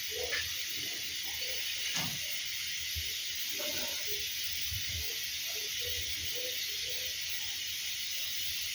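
A steady high hiss, with faint, scattered short sounds underneath.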